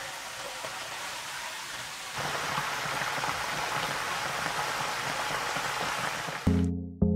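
Breaded whole chicken deep-frying in hot oil: a steady sizzling and crackling that gets louder about two seconds in. It cuts off suddenly near the end as music with struck notes begins.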